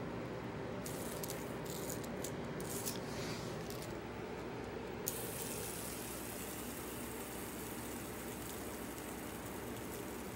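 Fidget spinner spinning flat on a hard floor: a few light clicks, then from about halfway a steady whirring rattle.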